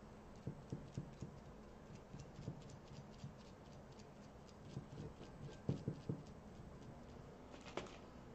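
Faint, irregular soft tapping and patting of a small paint sponge dabbed against a ceramic spoon, with a sharper click near the end.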